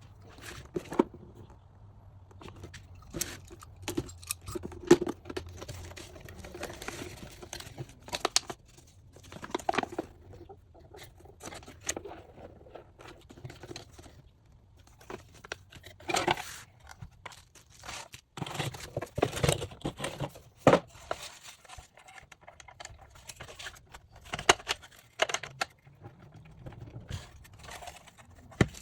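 Unboxing: packaging rustling, crinkling and tearing, with irregular clicks and knocks as plastic parts are handled and set down.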